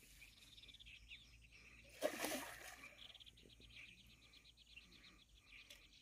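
A single short splash about two seconds in, as something is tossed into the water close by, followed by a faint, rapid chirping trill for a couple of seconds over otherwise quiet surroundings.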